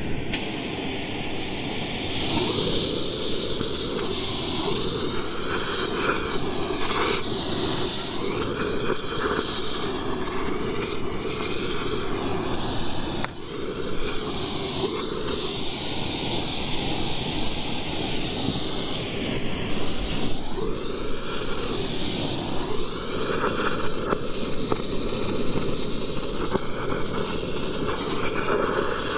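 Oxy-acetylene torch flame burning with a steady, continuous hiss whose upper tones shift and waver, dipping briefly about halfway through.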